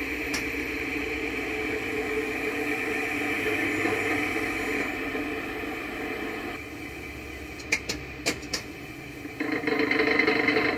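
Centrifugal fan wheel spinning down on a Schenck balancing machine: a steady running hum fades over the first several seconds, a few sharp clicks come about eight seconds in, then a louder swell of vibration noise near the end as the shaft passes through its critical speed, where its natural frequency matches the rotation speed.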